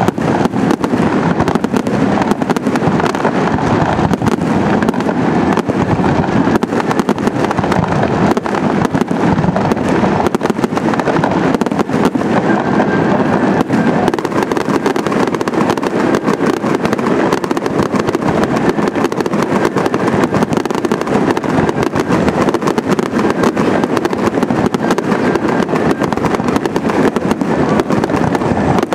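Aerial fireworks display: shells bursting and crackling in a continuous barrage of bangs, many in quick succession with no pause.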